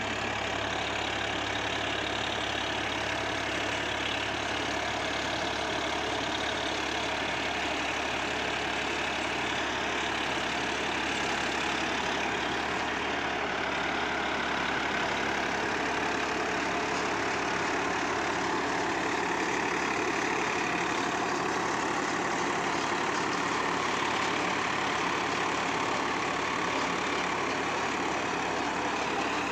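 Swaraj 963 FE tractor's diesel engine running steadily under load as it drives a 7-foot Landforce super seeder, whose rotary J-type blades churn the stubble and soil while it sows.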